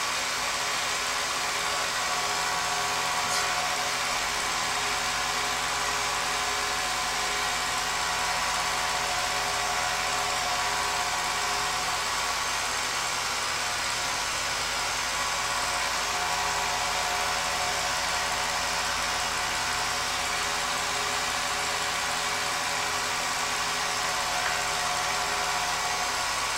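Film projector running: a steady, unbroken motor-and-fan whir.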